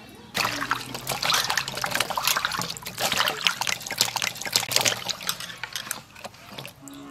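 Hands washing chunks of white radish in an aluminium bowl of water: splashing and sloshing as the pieces are rubbed and turned. It eases off about six seconds in.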